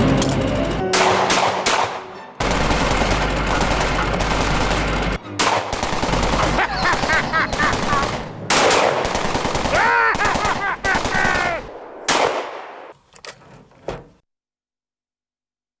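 Long bursts of rapid fire from a light machine gun with a top-mounted magazine, broken by a few short pauses, thinning to a handful of single shots before the sound cuts out near the end.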